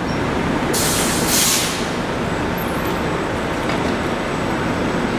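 PCC streetcar running past close by and coming to a stop, with a steady rumble. About a second in there is a loud hiss of released air lasting about a second.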